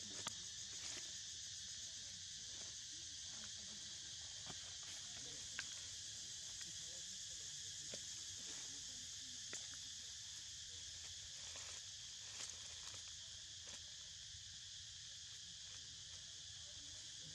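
Steady high-pitched insect chorus, with a few faint clicks now and then.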